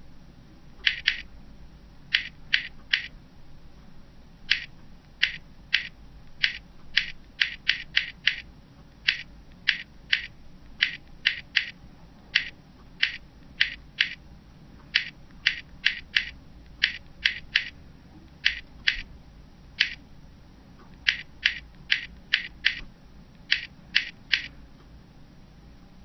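Sharp key clicks from typing on an iPod touch on-screen keypad, one click per tap, coming singly and in quick runs of two to four with short pauses between.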